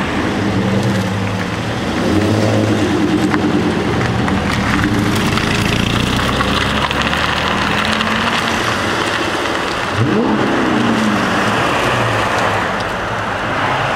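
Engines of a line of Mopar cars, Dodge Challengers and a V10 Dodge Viper, pulling away one after another, their pitch shifting as they pass. A quick rising rev about ten seconds in.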